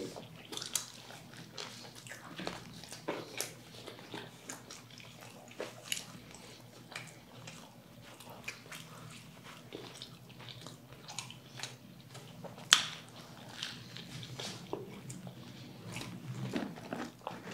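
Close-up eating sounds from biting and chewing a KFC Mighty Zinger fried-chicken burger: soft, wet mouth sounds with scattered small crunchy clicks. One sharp louder click comes about thirteen seconds in.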